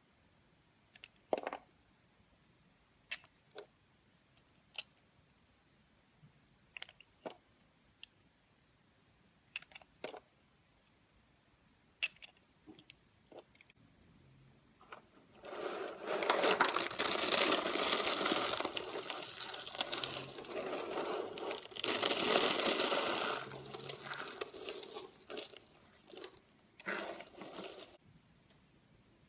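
A knife cutting soap. For the first half there are scattered sharp clicks and taps. About halfway in a long, dense crunching and scraping stretch begins, then a few shorter crunches come near the end.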